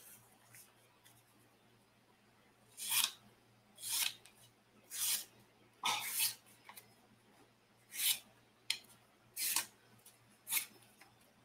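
Hands scraping and rubbing at a small object, a series of short rough strokes about a second apart, beginning about three seconds in.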